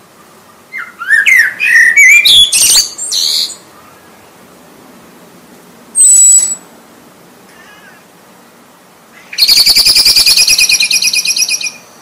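Eurasian blackbird singing: about a second in, a phrase of gliding notes that breaks into higher, squeakier twittering; a short high whistle at about six seconds; then a fast rattling trill for over two seconds near the end.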